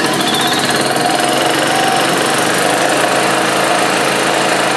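1994 Club Car DS golf cart's single-cylinder four-stroke gas engine running steadily just after starting. The new starter generator now cranks it fast enough to fire, which cures the no-start.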